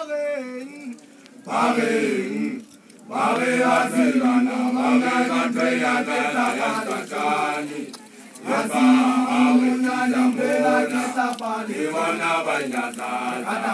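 A man's voice chanting in Sesotho, loud and in long phrases held on a level pitch. There are short breaks about three seconds and eight seconds in.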